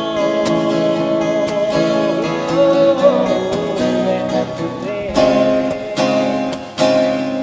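Ovation Super Adamas acoustic guitar strumming under a sliding lead melody on a Godin A6 Ultra guitar. About five seconds in, three strong strummed chords come a second apart, and the last is left ringing.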